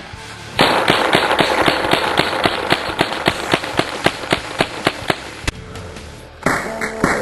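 Rapid gunfire, about four shots a second for some five seconds, over a steady hiss. After a brief lull near the end, another stretch of shots starts, duller and more muffled.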